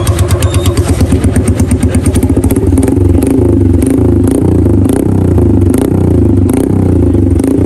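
Yamaha YBR's single-cylinder engine running through an aftermarket slip-on silencer held to the end of the exhaust pipe: it idles with an even pulse, then from about three seconds in is revved again and again, its pitch rising and falling with each blip of the throttle.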